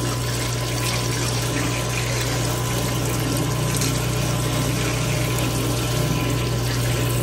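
Cooking oil filtration machine pumping hot fryer oil: a steady low pump hum under the continuous splash of oil pouring from its stainless steel wand onto the fryer's burner tubes, rinsing debris out of the vat.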